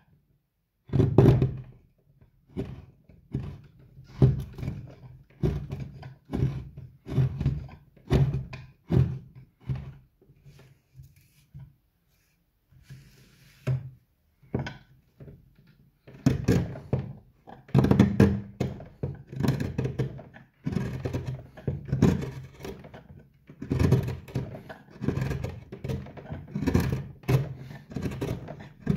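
Wood carving gouge pushed by hand into a wooden bowl blank, each cut a short crunchy thunk, coming roughly every half to three-quarters of a second and thinning out for a few seconds in the middle.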